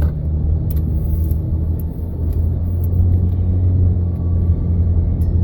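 Steady low rumble of a minivan driving, heard from inside the cabin: engine and road noise, with a few faint clicks.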